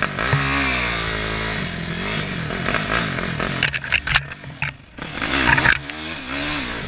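Yamaha YFZ450R quad's single-cylinder four-stroke engine revving up and down under throttle. Sharp clattering knocks come about three and a half to four seconds in and again near the end, as a branch scrapes across the quad.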